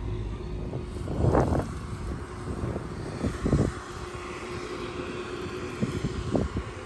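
Steady outdoor rumble with a low, even hum, broken by three dull knocks: about a second, three and a half seconds, and six seconds in.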